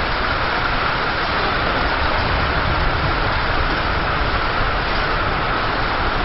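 Strong storm wind rushing steadily and buffeting the microphone.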